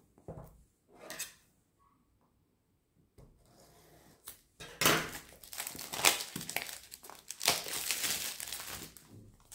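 Clear plastic shrink wrap on a cardboard box crinkling and tearing as it is pierced with scissors and pulled off, loud and crackly from about halfway on. A few short knocks of the box being picked up come in the first second.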